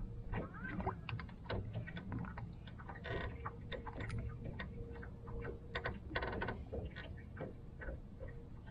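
Small waves slapping against a fishing boat's hull: irregular ticks and light splashes over a low rumble, with a faint steady hum through most of it.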